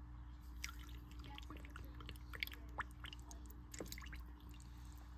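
Water poured slowly into a glass canning jar packed with raw chicken breasts: faint trickling and dripping with small scattered clicks, over a steady low hum.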